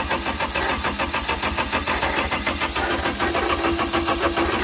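Skid steer's diesel engine turning over on its starter from a remote start switch, with an even rhythm of compression pulses, while an in-cylinder pressure reading is taken through a glow plug hole. It stops near the end.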